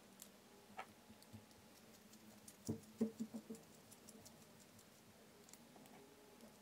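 Small clicks and light taps of a hex screwdriver and steel set screw against a 3D-printed plastic pulley while the screw is fitted, with a quick run of four or five knocks about three seconds in.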